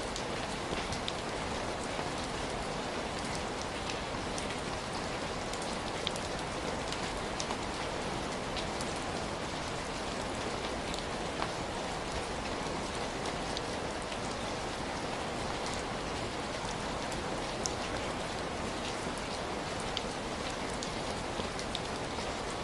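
Steady rain falling: an even hiss with scattered individual drops ticking sharply through it.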